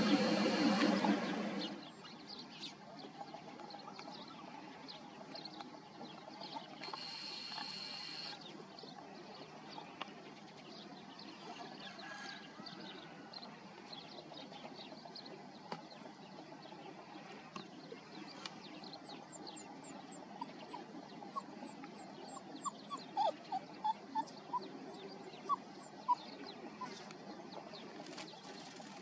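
Quiet outdoor ambience with small birds chirping: a run of rapid high chirps and a few louder short calls in the second half. A loud steady noise cuts off sharply about two seconds in and comes back briefly around seven seconds.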